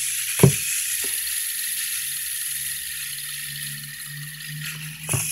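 Light-up LED fidget spinner whirring steadily on its bearing as it spins between the fingers, with a sharp click about half a second in and a few fainter clicks.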